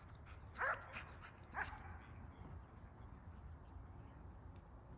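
Dog barking: two sharp barks about a second apart, with a fainter one between.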